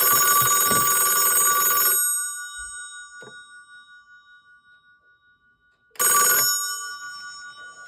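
1980s ITT rotary telephone's bell ringer ringing, really loud. One full ring of about two seconds dies away, and a second ring starts about six seconds in and cuts off after half a second.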